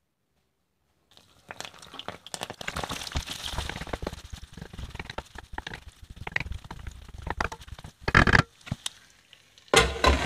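Chopped garlic, ginger and cardamom pods sizzling and crackling as they fry in oil and butter in a pot, stirred with a wooden spoon; it starts about a second in. Two short, louder clatters come near the end.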